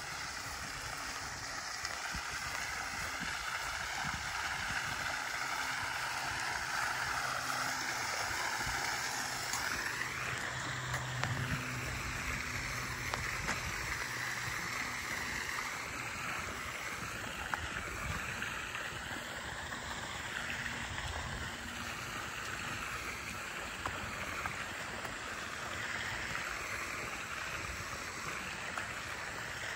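Water from a fountain jet splashing steadily into a round pool.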